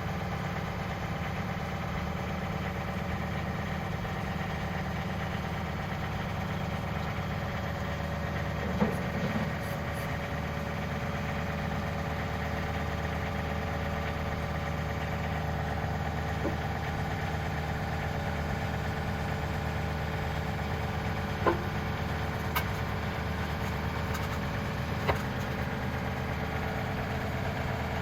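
John Deere 2032R compact tractor's three-cylinder diesel engine running steadily, with a few short sharp knocks scattered through, about one every few seconds.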